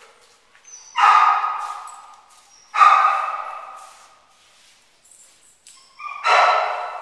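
A dog barking three times, about a second in, near three seconds and again near six seconds. Each bark echoes and fades slowly in a large hard-floored room.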